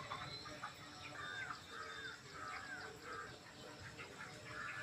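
Flock of 26-day-old broiler chickens calling, many short calls that fall in pitch, repeating and overlapping.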